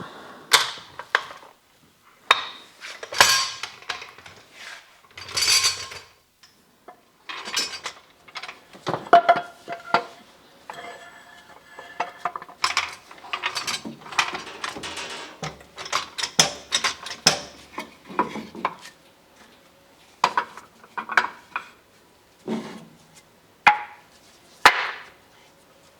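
Metal tools and parts being handled on a shop bench: irregular clanks, clinks and knocks, some ringing briefly.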